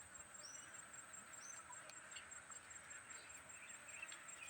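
Faint outdoor ambience: a steady, high, pulsing insect trill, with a few brief high bird chirps in the first couple of seconds.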